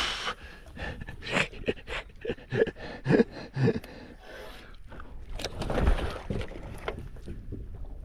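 A man panting and grunting with effort while lifting a heavy landing net with a big fish in it, with sharp knocks and scrapes of the net pole and gear against the boat. The grunts come in a cluster a few seconds in.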